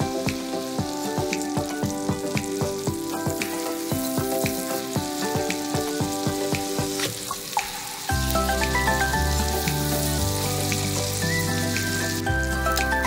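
Kingfish steaks sizzling as they fry in hot oil in a stainless steel frying pan, with background music over it; a deep bass enters in the music about eight seconds in.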